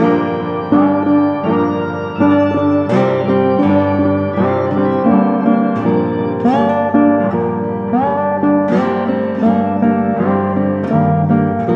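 Background music led by a plucked guitar, with notes sliding up in pitch like a slide guitar.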